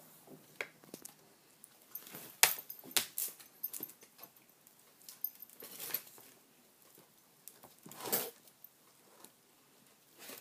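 Scattered soft rustles, clicks and knocks of a Japanese Akita nosing at a kitten in a plastic basket, the sharpest clicks about two and a half seconds in and a longer rustle about eight seconds in.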